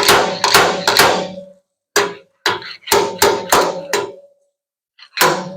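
Hammer tapping on the sheet-metal panel of a pickup bed while working out a dent: about ten sharp metallic strikes in three quick runs, each leaving a short ringing tone in the steel.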